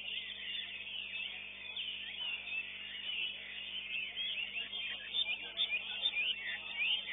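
Caged songbirds singing: a dense, continuous run of quick high chirps and whistled sweeps from several birds at once, becoming louder and more distinct near the end, over a faint steady hum.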